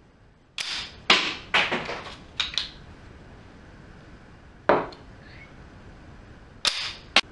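Sharp wooden clacks from a rubber-band-powered wooden Jenga pistol as its striker snaps forward to knock a block out of a Jenga tower. There are about eight clacks: several in the first three seconds, one near the middle and two near the end.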